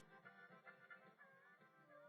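Near silence with very faint background music of held, melodic tones.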